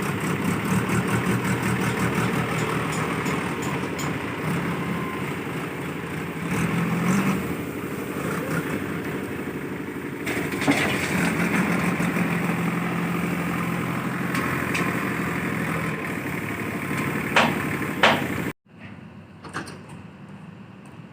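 Diesel engine of a concrete paving machine running steadily under work, with a low hum and mechanical clatter. Two sharp knocks come near the end, then the sound drops suddenly to a quieter, more distant engine hum.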